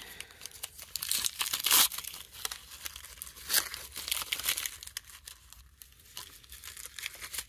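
Foil-backed gift wrapping paper torn and crinkled by hand: irregular papery crackling and rustling, loudest between about one and two seconds in.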